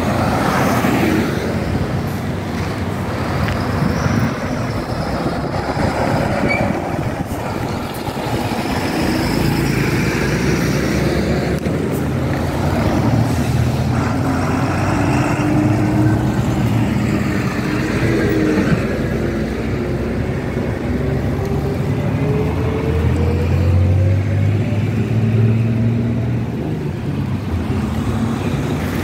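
Road traffic, with trucks and cars driving past and engines running. In the second half an engine's pitch rises slowly as a vehicle speeds up.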